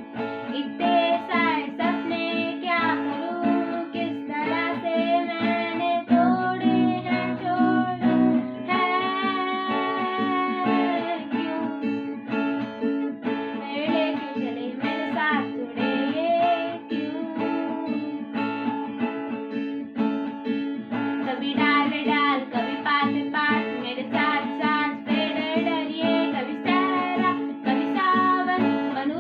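A song with a sung melody, possibly a child's voice, over plucked and strummed acoustic guitar.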